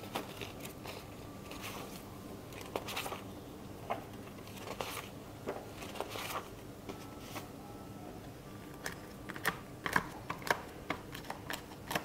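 Paper handling on a planner: sheets and pages rustling and flipping, with scattered light taps and clicks. The clicks come sharper and louder in the last few seconds, as the sheets are pressed onto the planner's discs.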